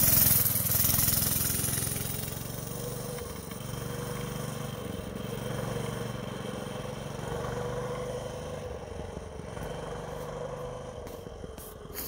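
A TrailMaster Storm 200 mini bike's 196cc single-cylinder engine running at steady revs as the bike passes close and pulls away down the road, fading into the distance.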